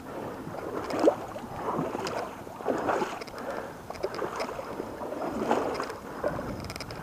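Footsteps on the rocks and dry brush of a riverbank, coming unevenly about every second or two, over the steady sound of flowing river water.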